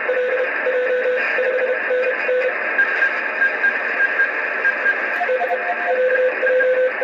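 Morse code (CW) tones received from the RS-44 amateur radio satellite transponder over steady receiver hiss. A strong low tone keys dots and dashes for the first couple of seconds, a fainter higher-pitched station keys in the middle, and the low tone comes back about five seconds in.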